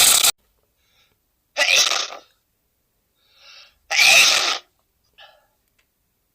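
A man sneezing repeatedly: two loud sneezes about two seconds apart, with softer short sounds between and after them.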